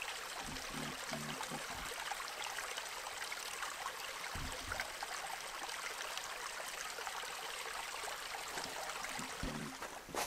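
A small creek running: a steady rush of flowing water, with a few soft low thumps.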